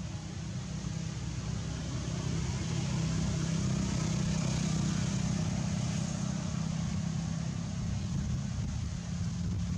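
Steady low engine drone, growing louder from about three seconds in and easing off again after about six seconds.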